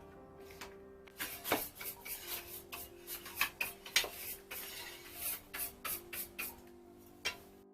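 Soft background music under a run of short, irregular scraping and rubbing noises that starts about a second in and stops near the end.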